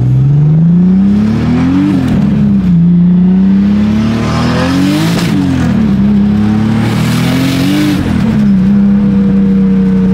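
Turbocharged BMW M54 straight-six pulling hard, heard from inside the car: the revs climb steeply three times and fall back sharply after each climb, with a rush of hiss near the top of the second and third, then the engine settles to a steady drone.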